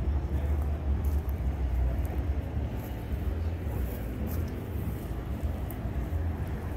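Steady low mechanical rumble of background machinery, with a noisy hiss above it.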